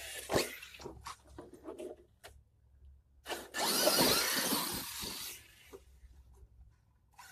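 Electric RC monster truck (Arrma Kraton 6S BLX) driving fast over dirt and grass. Short scrabbling bursts of tyre and drivetrain noise come first, then a loud rush as it passes close, about three to five seconds in.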